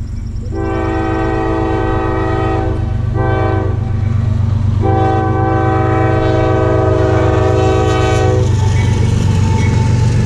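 Diesel freight locomotive horn sounding for a grade crossing: a long blast, a short blast and then a long blast, over the steady low rumble of the approaching train.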